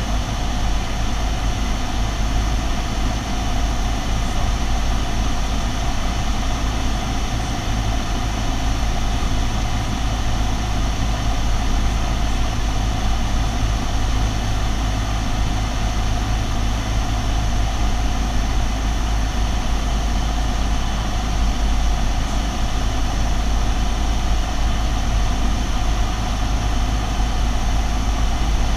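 Light single-engine propeller airplane's engine and propeller droning steadily in cruise, heard from inside the cockpit.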